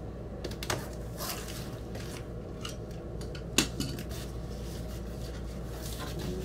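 A vinyl record's packaging being opened by hand: irregular scraping and rubbing with scattered sharp clicks, the loudest click about three and a half seconds in, over a steady low hum.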